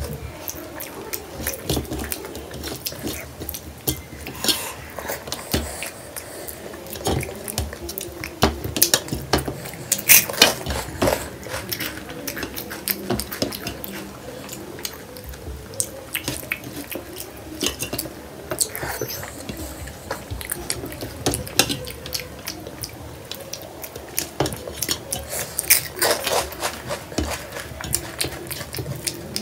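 Fingers scraping and scooping rice and rajma gravy across a stainless steel plate, close to the microphone, with many irregular sharp clicks and taps of fingertips and nails on the metal.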